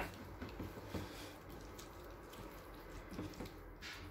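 Faint, irregular wet squishing of a gloved hand mixing a thick yogurt-and-spice marinade in a bowl.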